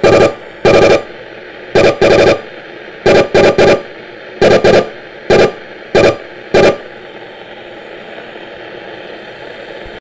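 Panasonic portable radio tuned to the bottom of the AM band, hissing with static and breaking into about a dozen short, loud buzzing bursts, singly and in quick pairs and threes, as remote-control buttons are pressed; the bursts are the remote's transmission picked up by the radio, the sign that the remote is working. After about seven seconds only the static is left.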